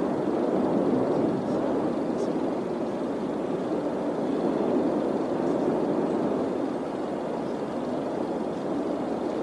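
Erupting La Palma volcano, its vent throwing up a lava fountain and making a steady, low rushing noise without breaks.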